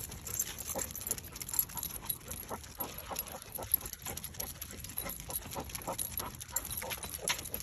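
Walking on a concrete sidewalk with two leashed basset hounds: light, irregular clicks and scuffs of footsteps and dog paws.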